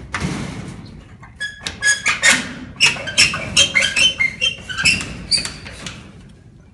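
A padlock and rusty barrel bolt being worked on a galvanized sheet-metal door: a scrape at the start, then about a second in a quick run of sharp metallic clinks and rattles with a ringing tone, as the lock is handled to open the door.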